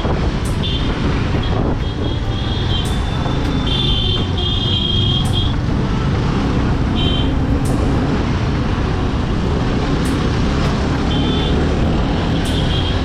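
Suzuki Gixxer 250 motorcycle riding, its engine running under a steady rumble of wind on the helmet camera, with traffic around. Short high-pitched tones come and go several times.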